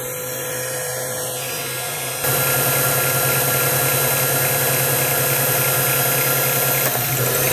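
Mini mill spindle running a fly cutter through a facing pass on an aluminium block: a steady motor hum with the cutting noise over it, which gets louder about two seconds in.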